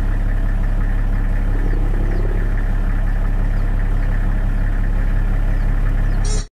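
Steady, unchanging engine-like hum, like a motor idling, with faint short high chirps now and then. It cuts off abruptly near the end.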